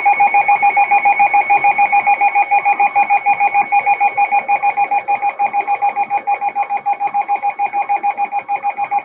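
Weather alert radio's built-in alarm sounding for an incoming severe thunderstorm warning: a loud, harsh electronic beeping, about seven beeps a second, steady throughout.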